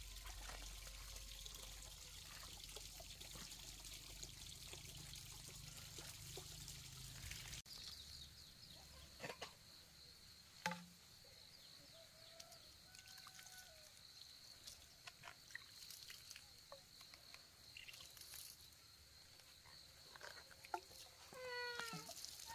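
Mostly very quiet, with faint scattered chirps and clicks. Near the end, water pours from a hollow bamboo tube and trickles onto garden seedlings.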